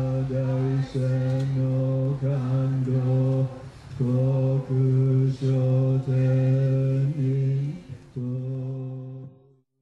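Buddhist chanting by a group walking in procession: voices held on one steady low note, the chant broken into short repeated syllables. It fades out near the end.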